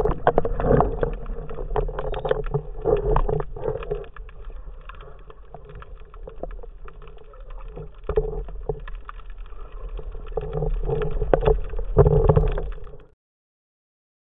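Muffled underwater water noise picked up through a camera's waterproof housing, with many sharp knocks and clicks from handling. It is louder in the first few seconds and again near the end, then cuts off abruptly.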